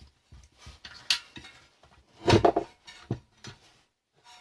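Small scrap parts being handled and sorted by hand: scattered clicks and knocks, with one louder clatter a little over two seconds in.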